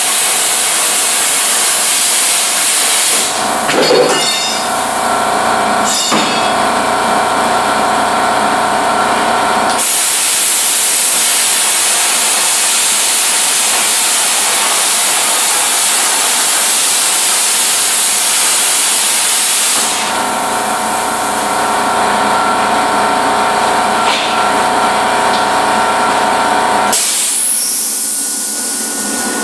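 Plasma cutter blowing a loud, steady hiss of compressed air. Twice, for several seconds each, a steady buzzing tone and a low hum join the hiss as the arc cuts steel, and the air keeps hissing after the arc stops.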